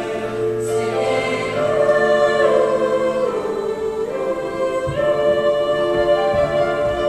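High school mixed choir singing long, held chords, the voices sliding down in pitch partway through and moving to a new chord about five seconds in.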